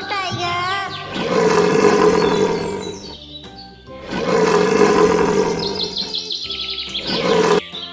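A tiger roaring: two long roars, the second starting about four seconds in.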